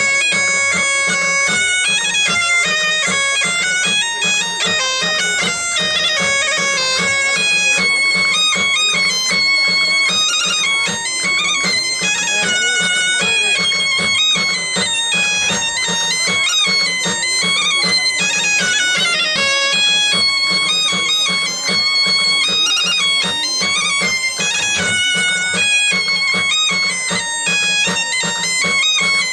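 Asturian bagpipe (gaita) playing a quick, stepping dance melody over a steady low drone.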